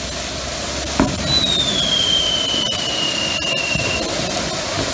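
An anar (fountain firecracker) burning with a steady rushing hiss of spraying sparks. A sharp bang comes about a second in, and a high whistle falls slightly in pitch for nearly three seconds.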